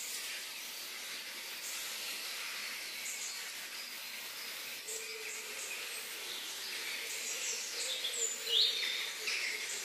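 Tropical forest ambience: a steady high drone of insects with short bird chirps, and a louder run of bird calls about eight and a half seconds in.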